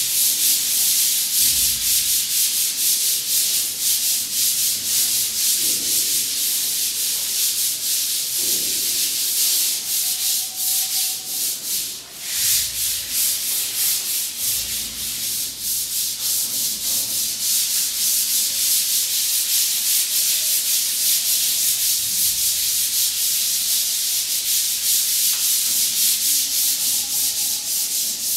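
Sandpaper on sanding blocks rubbed over dried wall putty by hand to level it, in quick back-and-forth strokes that make a steady scratchy hiss, with a brief let-up about twelve seconds in.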